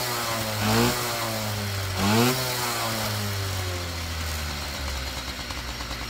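Yamaha QT50 moped's small two-stroke single-cylinder engine blipped on the throttle three times in quick succession, each rev rising sharply and falling back, then settling into a steady idle near the end. The engine runs freely with its muffler just cleared of packed carbon.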